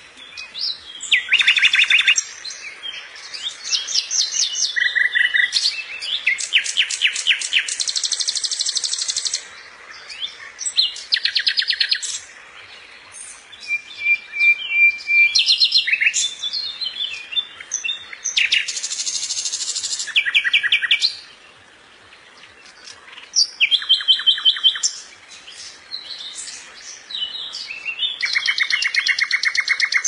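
Songbird singing: varied phrases of rapid trills and fast repeated notes, each a second or two long with short pauses between, and one held whistled note near the middle.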